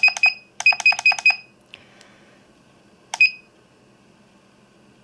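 Junsi iCharger 208B's key beeps as its buttons are pressed to step up the current setting: two quick runs of short, high beeps at about seven a second in the first second and a half, then a single beep about three seconds in.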